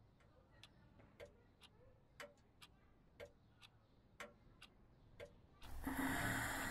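Mechanical clock ticking in a steady tick-tock, about two ticks a second, alternating louder and softer. About five and a half seconds in, a much louder steady rushing noise with a low hum sets in over it.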